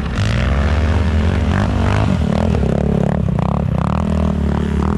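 Snowmobile engine running steadily at a low, even pitch, with scraping noise from the track and skis over snow.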